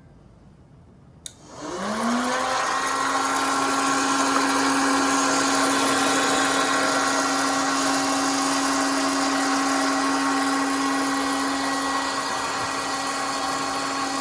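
A relay clicks about a second in, switching on an electric popcorn machine. Its motor spins up with a short rising whine, then runs steadily with a constant hum over a rush of air.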